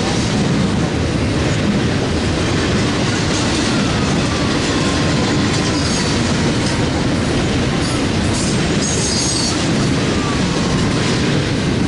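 CSX double-stack intermodal freight train's well cars rolling past, a steady loud rumble of steel wheels on rail, with a few faint thin whines that come and go.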